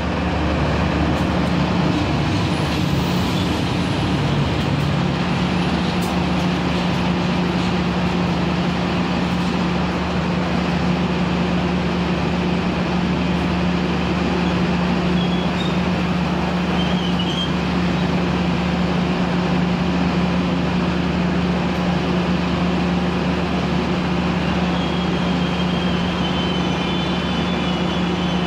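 Diesel-electric locomotive engine idling close by: a loud, steady low drone that does not change.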